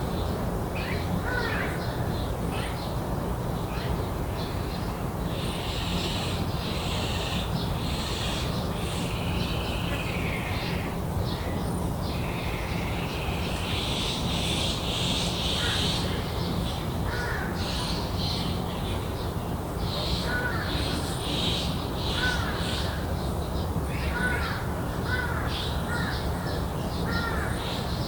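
Crows calling among other garden birds, with short chirping calls repeating about once a second in the second half, over a steady low background rumble.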